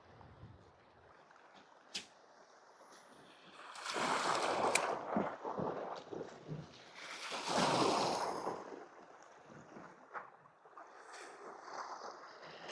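Sea waves washing in over shore rocks: two surges of rushing water, about four and seven seconds in, over a quieter wash, with a couple of sharp clicks.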